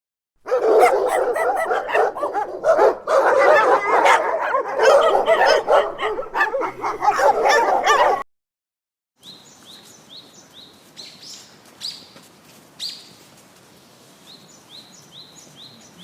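Animal calls: dense, wavering, pitched calls for about eight seconds. After a short break they give way to faint, quick, high chirps that drop in pitch, repeated in runs.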